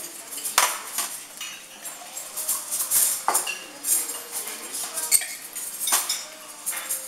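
Metal cutlery clinking and scraping on ceramic plates as people eat, with several sharp clinks scattered through.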